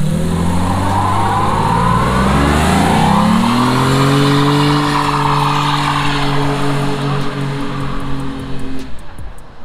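BMW 7 Series (E32) sedan's engine revving up over about four seconds and held at high revs while its rear tyres spin in a smoky burnout, then letting off near the end.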